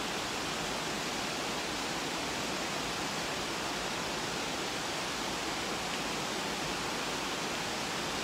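Steady rush of running water, an even hiss that holds at one level without gusts or breaks.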